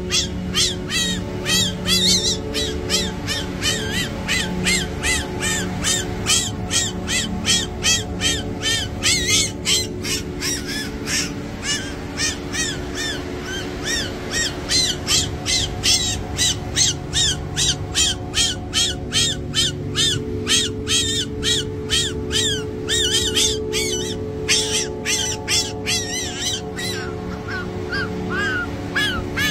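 Fennec fox kits squeaking in rapid, high-pitched chirps that rise and fall, about three to four a second with brief pauses, over a steady low music bed.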